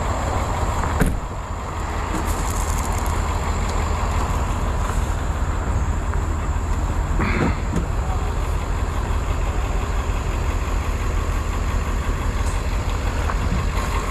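A large engine on a truck or work machine running steadily at a constant speed, with a thin steady whine above its low rumble. A short knock comes about a second in.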